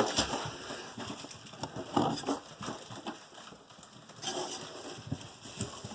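Dry mouse-nest material and debris rustling, crackling and scraping as it is pulled out of a wall cavity, with irregular small knocks and a sharper knock at the start.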